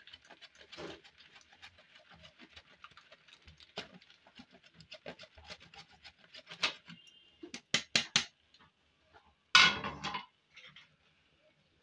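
Mozzarella cheese being grated on a metal box grater: a long run of quick light rasping strokes, then a few sharp taps and one loud clatter near the end.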